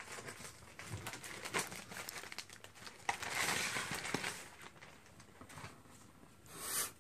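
Grey plastic mailing bag crinkling and rustling as it is handled and a cardboard test-kit box is pulled out of it, loudest about three to four seconds in.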